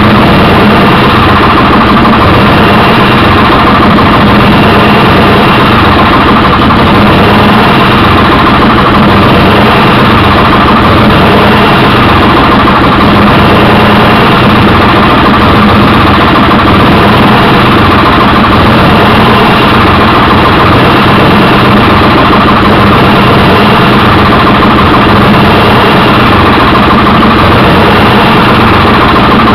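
Chevrolet Corvair air-cooled flat-six engine running loudly and steadily, hammering and not firing on all six cylinders.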